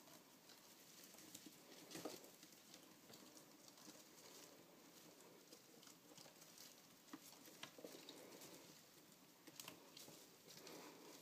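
Faint rustling and scratching as pet mice scramble through hay and over a plastic carrier, with a few sharper clicks and scrapes scattered through, the strongest about two seconds in.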